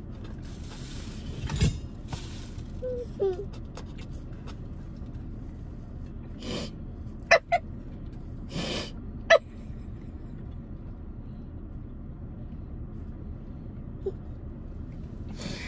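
Stifled, breathy laughter in a few bursts over the steady low rumble of a car's cabin, with a few sharp clicks near the middle.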